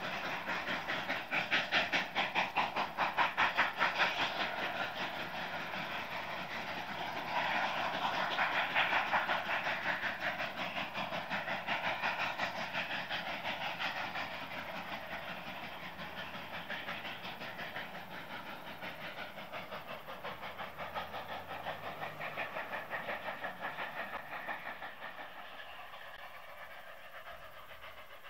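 Two narrow-gauge steam locomotives, a K-37 and a K-36 Mikado double-heading, working hard upgrade. Their exhausts give fast, even chuffs over a steady hiss, loudest in the first half and fading as the train draws away.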